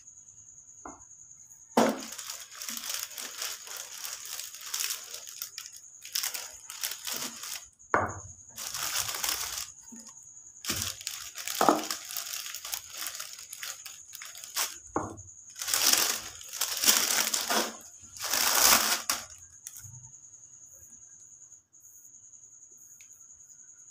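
Clear plastic sheet crinkling and rustling in a series of bursts as dough is rolled flat under it with a rolling pin.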